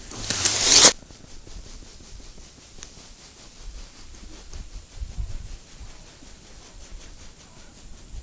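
Close handling noise: a loud rustle for about the first second, then faint scratching and rubbing as hands unhook a roach from a small jig and handle a small ice-fishing rod over the hole.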